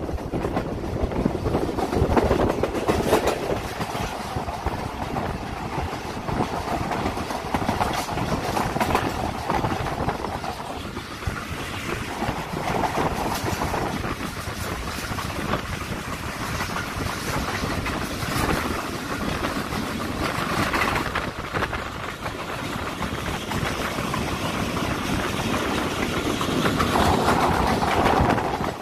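Pakistan Railways passenger train running at speed, heard from an open coach window: a steady rumble of the coaches with the wheels clicking over the rails.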